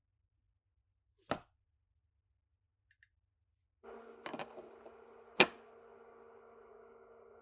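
A single soft thump as the flipped sponge cake is dropped back into the metal pot. A few seconds later a steady low hum with light hiss starts, with two small clicks and then a sharp clack as a glass lid is set down on the pot's rim.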